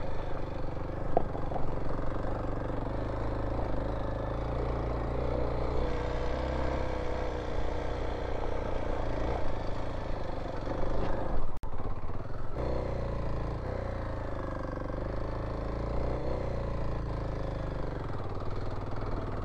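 Kawasaki KLX dual-sport motorcycle's single-cylinder engine running steadily under load on a rough, rocky track, with clattering from the ground. The sound cuts out for an instant a little past halfway.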